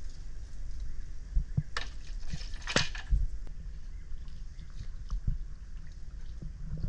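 Water splashing and dripping around a wooden dugout canoe as a man climbs aboard from the water, with a few knocks on the hull. The splashing is loudest about two to three seconds in.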